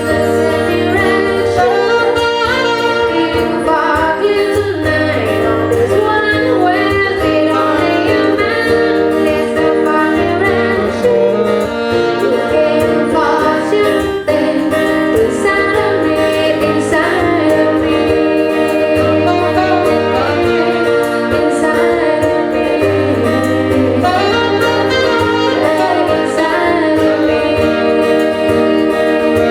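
Band music: a song with a sustained, gliding lead melody over a steady bass line.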